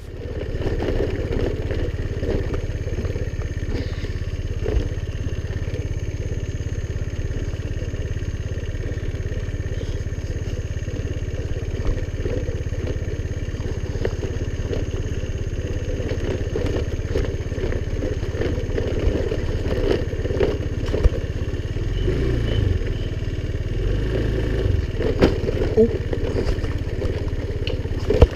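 Honda scooter's small engine running steadily while ridden, with a few short knocks and clatters.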